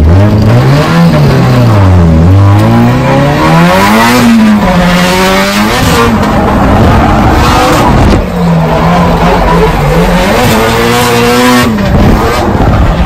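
Drift car on track, its engine revving up and falling back again and again as it slides, over loud tyre squeal.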